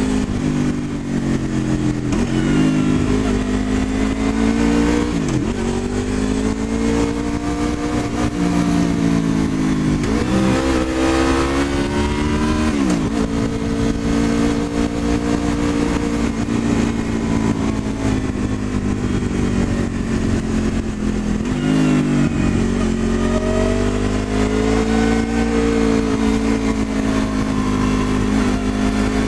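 Honda VFR800's V4 engine running under way, heard from the rider's seat over wind noise. Its pitch rises and falls with the throttle through the bends, with a few sharp drops.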